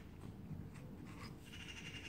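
Faint steady low background rumble, with a few soft clicks and a short high-pitched, whistle-like call starting about a second and a half in.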